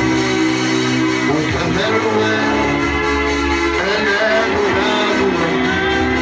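Music with a singing voice over sustained instrumental chords.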